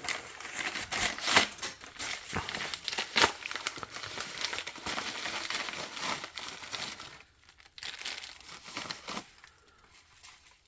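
Packaging being unwrapped by hand: dense crinkling, rustling and tearing for about the first seven seconds, then only a few quieter rustles.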